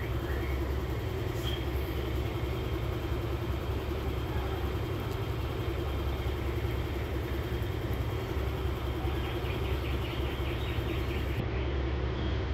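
Steady low vehicle rumble, with a faint steady hum above it.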